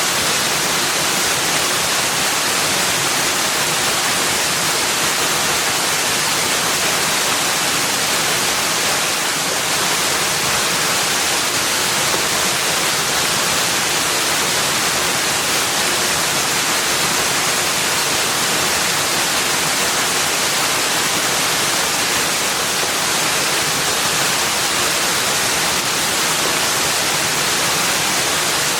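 Steady, unbroken rush of water, an even hiss strongest in the upper range with no distinct drops, splashes or calls.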